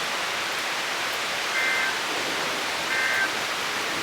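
Heavy rain hissing steadily in a severe thunderstorm. Two short high electronic beeps sound over it, about a second and a half apart.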